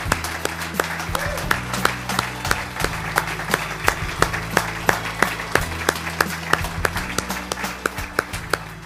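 Audience applauding, many hands clapping steadily, over low background music.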